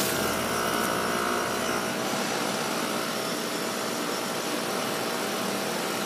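A 2-ton Carrier Performance Series central air-conditioner condenser running steadily: the top fan's even rush of air, with a few faint steady tones.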